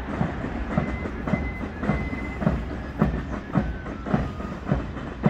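The march approaching down the street: a steady beat of thumps, about two a second, over a low rumble, with a few short high tones.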